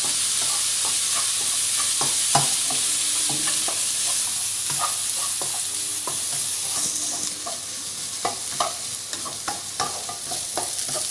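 Diced onion, carrot and beans sizzling in oil in a non-stick frying pan, stirred with a wooden spatula that scrapes and taps against the pan at irregular moments. The sizzle eases a little about halfway through.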